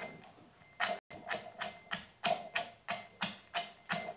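Metal pestle pounding crunchy roasted makhana (fox nuts) in a steel mortar, coarsely crushing them. There are about three strokes a second, each strike with a short metallic ring.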